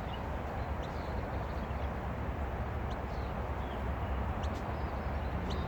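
Outdoor nature ambience: a steady low rumble and hiss with scattered short, high bird chirps.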